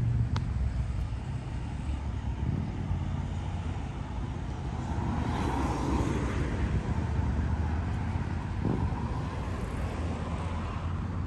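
Low, steady engine rumble under outdoor noise, swelling and fading for a couple of seconds around the middle as a motor passes.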